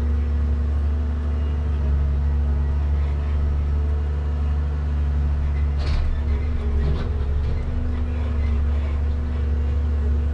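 Komatsu 875 forwarder heard from inside its cab: the diesel engine's steady low drone while the hydraulic crane swings and loads logs, with a single short knock about six seconds in.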